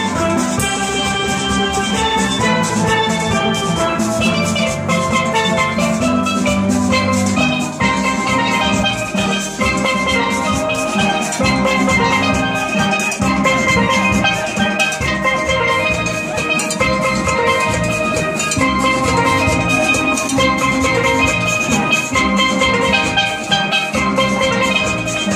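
Steel band playing a tune together: many steel pans struck with sticks, ringing notes over a steady drum beat.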